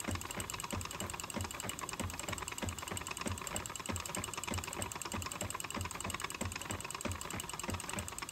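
Wooden spinning wheel running while plying yarn, a steady rhythm of soft knocks and light clicks from the turning wheel and flyer.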